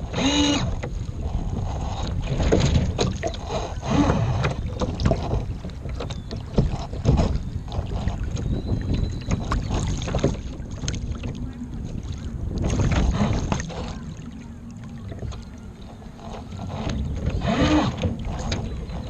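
Outdoor lakeside ambience dominated by wind buffeting the microphone, rising and falling in gusts, with scattered small knocks and two brief pitched calls, one about half a second in and one near the end.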